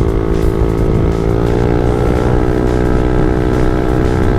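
Yamaha NMAX 155 scooter's single-cylinder four-stroke engine running through a JVT V3 aftermarket exhaust pipe at a steady cruising pitch while being ridden, its note edging up slightly in the first couple of seconds.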